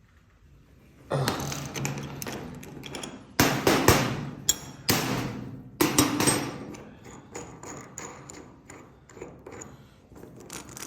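Ratchet and wrench turning the bolt of a 3D-printed dimple die pressed into sheet metal, with clicks and a run of loud sharp knocks about a third of the way in, then smaller ticks that fade.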